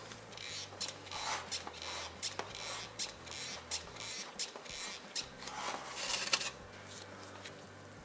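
Grease gun being pumped into a cone-type wheel bearing packer, forcing grease through a tapered roller wheel bearing. It makes a run of short, irregular scraping strokes that stop about six and a half seconds in.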